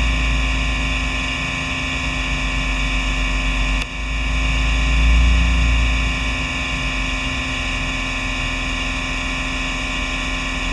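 Fog mist nozzle spraying water without a break: a steady hiss over a low, steady machine hum, with a brief dip in level about four seconds in.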